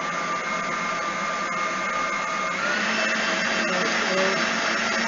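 HOUSNAT electric meat grinder's motor running steadily with a high whine, just switched on; about two and a half seconds in its tone changes to a lower, rougher hum.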